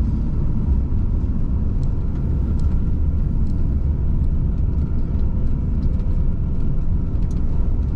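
Steady low road and engine rumble of a Citroen camper van driving, heard from inside the cab, with a few faint light clicks over it.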